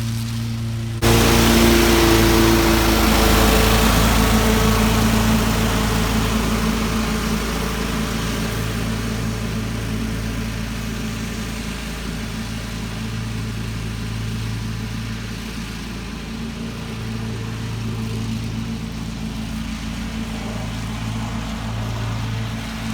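An engine running steadily with a hiss, stepping up suddenly about a second in and then easing slightly.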